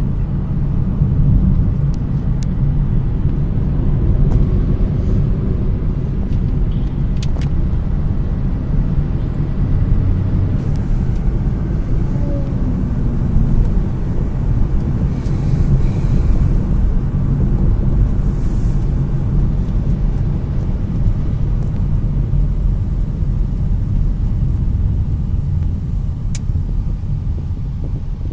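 Steady low road-and-engine rumble of a car driving, heard from inside the cabin.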